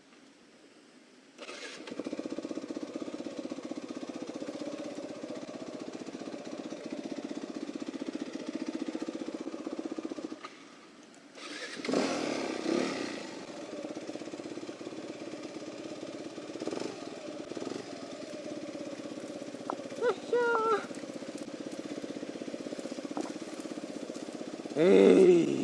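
Single-cylinder four-stroke off-road motorcycle engine starting about a second and a half in, then running. It drops away briefly around ten seconds in, picks up again with a rev, and gives a few short sharp blips near the end, the loudest just before the end.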